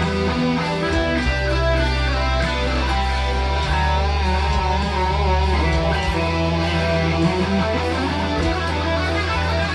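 Electric guitar being played continuously: picked notes moving around over held low notes that change a few times.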